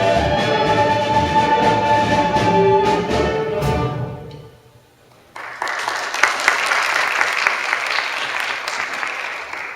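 Instrumental accompaniment to a stage musical number plays its closing sustained notes and dies away about four and a half seconds in. After a brief lull, an audience breaks into applause that gradually thins out.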